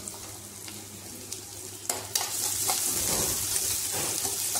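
Chopped onions and ginger-garlic paste sizzling in hot oil in a non-stick kadai, stirred with a steel spatula that scrapes and taps the pan a few times. The sizzle grows louder about two seconds in.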